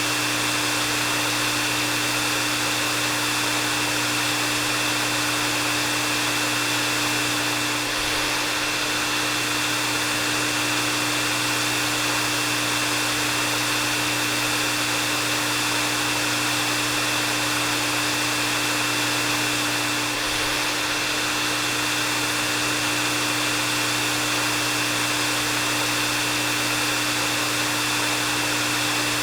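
Hair dryer running steadily: an even rush of blown air with a low motor hum and a high whine held on one pitch, unchanging throughout.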